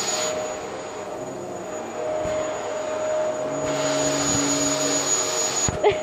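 Upright vacuum cleaner running on carpet: a steady motor whine over a rushing hiss, growing louder and fainter in turns. Just before the end there are a couple of sharp knocks and a short pitched cry.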